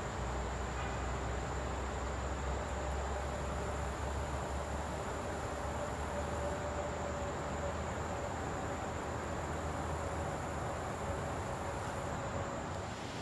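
Outdoor ambience of insects, such as late-summer crickets, keeping up a constant high-pitched trill over a low steady rumble. The trill breaks off near the end.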